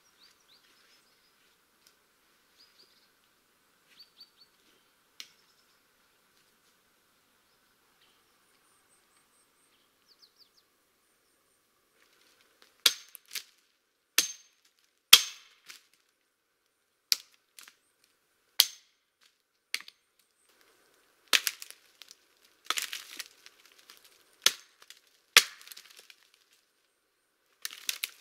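Hatchet chopping at the branches of a pine tree: sharp, loud blows about every one to two seconds, starting about halfway through, some followed by a short crackle of wood.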